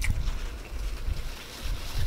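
A person chewing food with their mouth closed close to the microphone, with uneven low thumps and a couple of faint mouth clicks.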